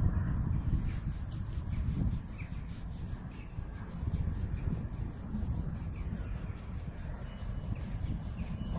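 Wind buffeting the microphone in an irregular low rumble, with faint rubbing and ticking noise.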